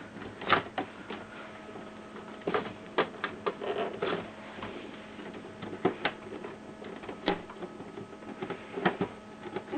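Irregular light clicks and plastic knocks from the Canon Pixma MG2470's ink cartridge carriage being slid by hand and its ink supply tube being handled. A faint steady hum runs beneath.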